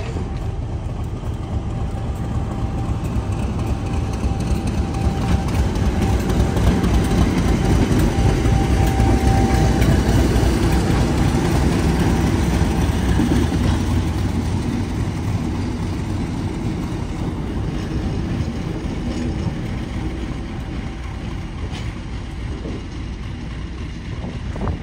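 Class 50 diesel locomotive running past at close range, its English Electric 16-cylinder diesel engine giving a steady, heavy rumble. It swells to a peak about eight to ten seconds in, then fades gradually.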